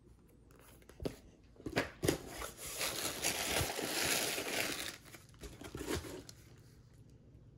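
Plastic bubble-wrap packing crinkling and rustling as hands dig through a shipping box and pull out a shrink-wrapped hardcover book. A few sharp crackles come first, then about three seconds of continuous crinkling, then a couple more crackles.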